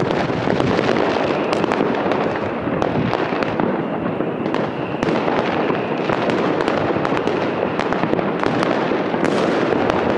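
Fireworks going off all around at once: a continuous mass of overlapping bangs and pops, with sharper single reports standing out now and then.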